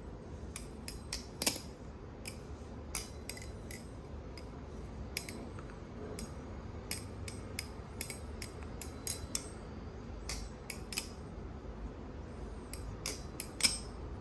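Balisong trainer, an Orca trainer clone, being flipped: irregular metallic clicks and clacks as the handles swing and strike the blade and each other, with a short lull about four seconds in and the sharpest clack near the end.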